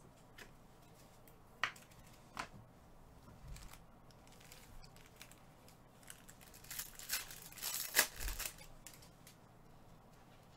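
Foil trading-card packs crinkling in gloved hands, and a pack being torn open: a few light clicks early, then a cluster of crackling rips about seven to eight seconds in.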